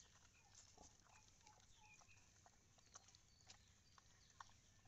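Near silence with faint scattered clicks and crunching from a sow and piglets chewing fresh-cut grass, and a few faint short high chirps.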